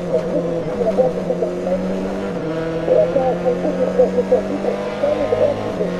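Citroën Xsara WRC's turbocharged 2.0-litre four-cylinder engine under full throttle, pulling hard in fourth gear at about 5,400–5,500 rpm, heard from inside the cabin. The engine note changes abruptly near the end.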